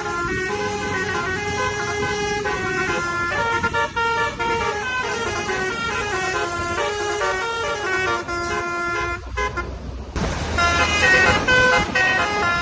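Tour bus's basuri 'telolet' multi-tone air horn playing a tune of held notes that step up and down. Near the end it breaks off briefly, then comes back louder.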